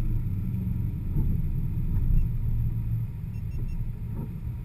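Chevrolet Corvette's V8 engine running at low speed, heard from inside the cabin. Three short faint beeps come a little over three seconds in.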